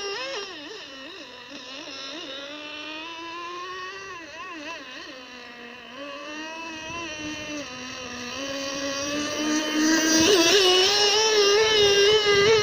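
Handmade wooden RC boat's 0.28 nitro engine running at high revs: a high, buzzing whine whose pitch wavers and drifts up and down as the boat runs. It gets louder from about ten seconds in as the boat passes close.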